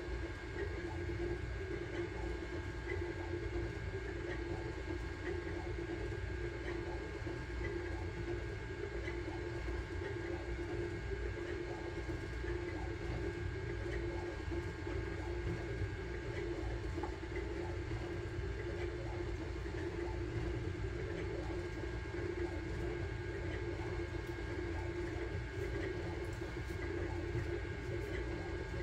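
Sunlu Terminator 3 FDM 3D printer running mid-print: a steady machine hum with several constant tones from its fans and stepper motors.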